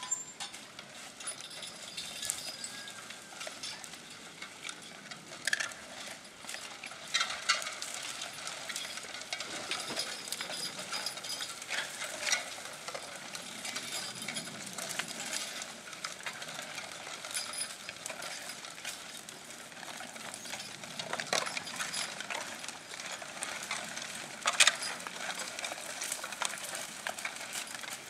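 Horse-drawn tractor disc harrow working plowed ground: a steady crackling, scraping hiss of soil and clods breaking up under the disc blades, with a few sharp knocks scattered through it.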